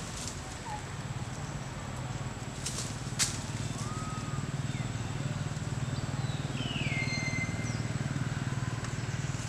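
Outdoor forest ambience: a steady low drone and a thin high steady tone. Brief rustling of leaves ends in a sharp snap about three seconds in, and a few short whistled calls sound, one sliding down in pitch past the middle.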